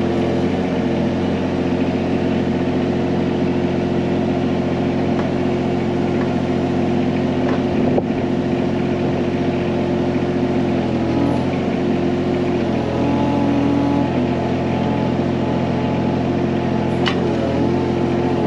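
John Deere 17G mini excavator's diesel engine running steadily under hydraulic load while digging, its pitch sagging slightly now and then. There are two sharp knocks, one about eight seconds in and one near the end.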